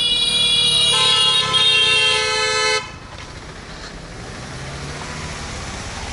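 Vehicle horn blaring for about three seconds, with a second, lower horn tone joining about a second in; both cut off together. A vehicle engine follows, slowly growing louder.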